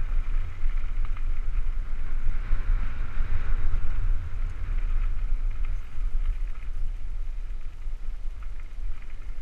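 Wind buffeting the microphone over the rumble and crunch of a Cannondale Super V900 mountain bike's tyres rolling fast down a gravel fire road. The noise swells about two to four seconds in.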